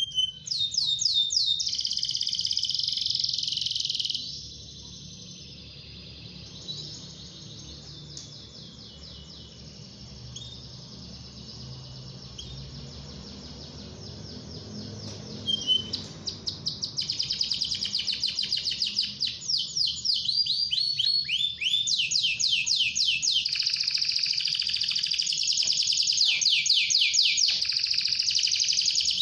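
Domestic canary singing a continuous song of fast rolling trills. The trills are loud for the first four seconds, go softer for a long stretch, then come back loud and rapid from about sixteen seconds on.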